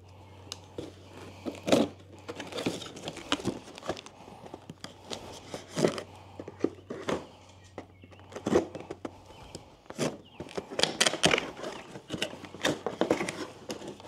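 Cardboard box and plastic packing bags rustling and crackling as e-bike handlebars are unpacked, with scattered knocks and taps as the bars are handled.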